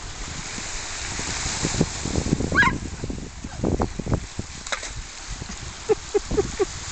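Small waves washing over a pebble beach, with wind gusting on the microphone. About two and a half seconds in there is one brief high call that rises in pitch.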